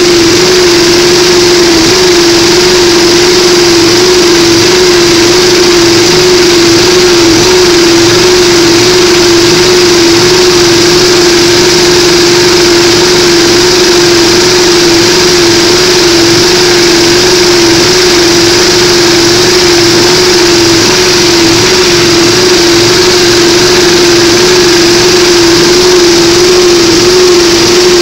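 Belt-driven test rig running steadily: a Fisher & Paykel Smart Drive washing machine motor, rewired with neodymium magnets, spun as a generator, with one loud constant whine over a wide, even mechanical noise.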